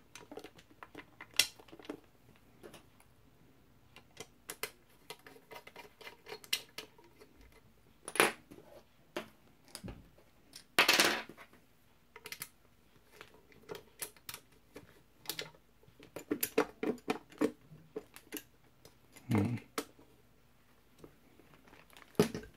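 Handling clicks and taps as a base plate is fitted to the underside of a gumball machine and a small screw is turned into it with a screwdriver, with a few louder knocks of the machine being moved.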